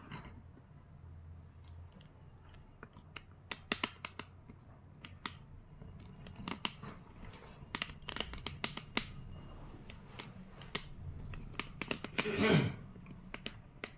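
Writing on a board: a scattered series of sharp taps and short scratchy strokes, with one longer, louder rasp near the end.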